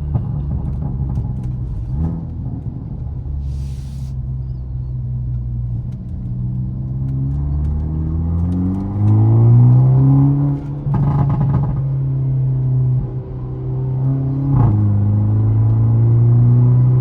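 Hyundai Elantra N's turbocharged 2.0-litre four-cylinder running through an exhaust with the resonator deleted, sounding aggressive. It idles, then is revved in a rising sweep about seven seconds in, and is held at raised revs, with short dips near the middle and near the end.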